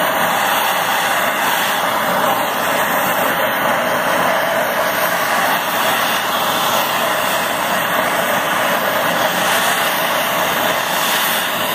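Hand-held gas torch burning steadily with an even hiss as its blue flame heats a brass ferrule on a copper pipe, bringing the joint up to heat for silver solder.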